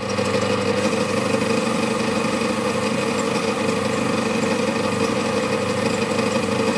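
Small motor-driven sanding wheel running steadily while the crimped edge of a metal electrolytic capacitor can is held against it and ground off, a constant motor hum under an even grinding hiss.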